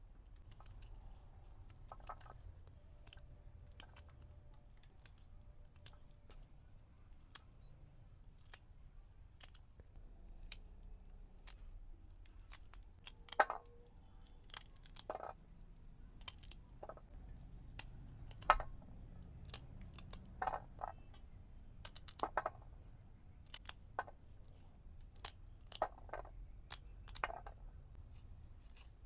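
Irregular sharp clicks and taps of kitchen preparation work over a faint low hum, becoming louder and more frequent about halfway through.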